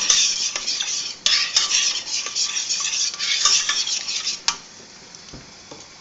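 Spoon stirring and scraping around a metal saucepan of thickening white sauce, kept moving so no lumps form. The scraping breaks briefly about a second in and stops with a knock about four and a half seconds in.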